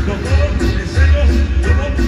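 Loud dance music played by a DJ over a large sound system, with heavy bass pulsing on a steady beat.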